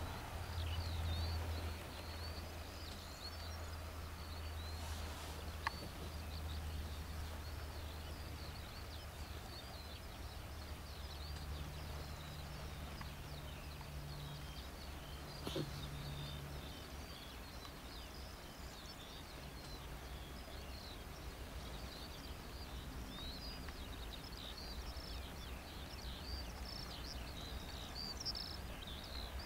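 Low, steady drone of two distant diesel locomotives working together at the head of a tank-wagon train. The drone is strongest in the first couple of seconds, then eases. Many birds chirp over it, busier toward the end.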